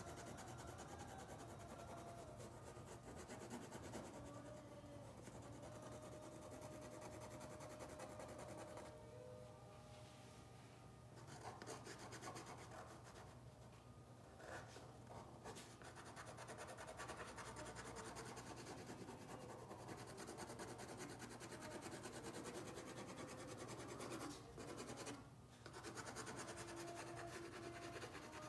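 Faint scratching and rubbing of an art tool working over paper, irregular strokes over a steady low hum.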